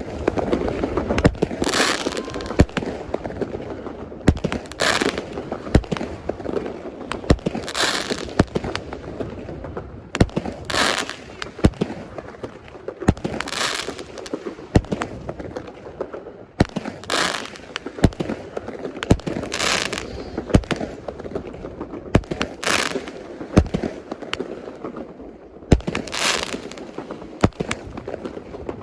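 Consumer fireworks going off in a long volley: a hissing, crackling burst about every three seconds, with many sharp bangs in between.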